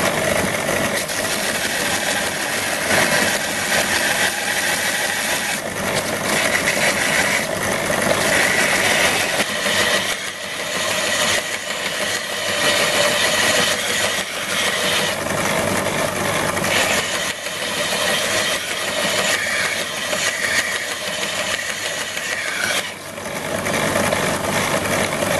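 Small bench belt linisher running, its abrasive belt grinding the end of a steel rod held against it. The belt is a broken one re-joined with glue, and its overlapped join gives a slight vibration each time it comes round.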